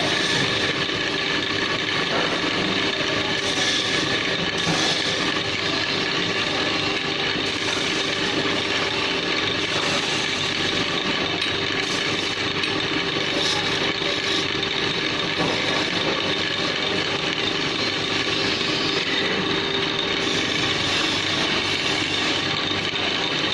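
Wood lathe running steadily with its motor humming while a turning chisel cuts into the spinning wood of a table leg, a continuous scraping, shaving noise.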